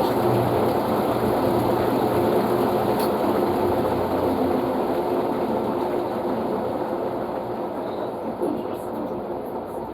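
Panasonic washing machine running on its blanket cycle: a steady mechanical hum from the motor and drum. It grows gradually quieter over the second half, and its deepest hum fades out near the end.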